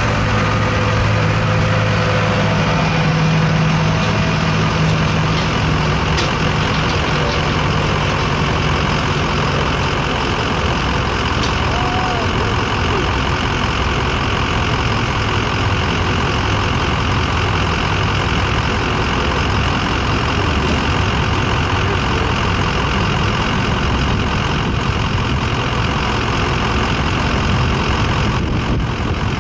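1977 Ford F-250's gas engine running hard and steadily under load while pulling a weight-transfer sled. A low drone is strongest for the first ten seconds or so, then gives way to a rougher, noisier engine sound.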